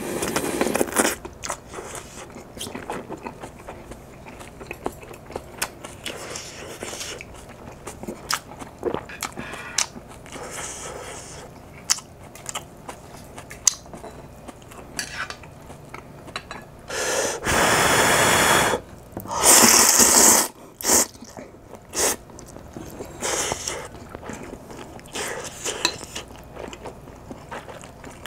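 A person eating instant ramen: a sip of hot broth from the bowl at the start, then steady chewing and wet mouth clicks. About seventeen seconds in come two long, loud slurps of noodles, followed by a few short ones.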